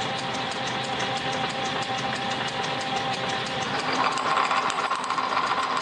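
Drill press running, its twist bit drilling into a 1-inch metal bar held in a drill press vise: a steady motor hum with a fast, even ticking, and a louder, higher tone comes in about four seconds in as the bit cuts.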